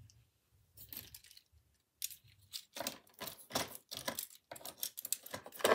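Plastic clicks and taps from handling a model railway breakdown crane and fitting its parts into a vacuum-formed plastic packaging tray: a few faint ticks at first, then a quick run of light clacks from about two seconds in.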